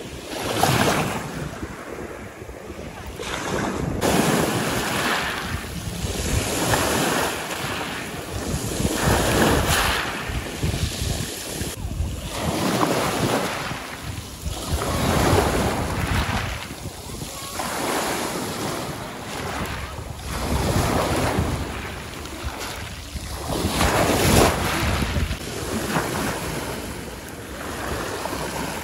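Sea waves breaking and washing onto the shore, the surf swelling and falling back about every three seconds.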